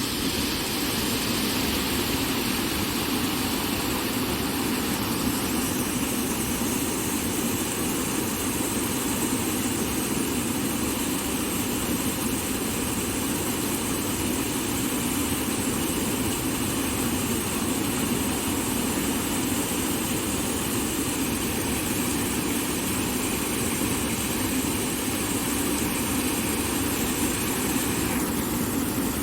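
Running water rushing steadily, a continuous even noise without pause.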